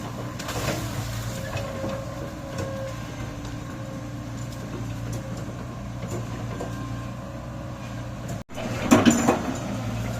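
Excavator engine running steadily, with light clicks and knocks. The sound breaks off abruptly near the end and returns with louder metallic clanking.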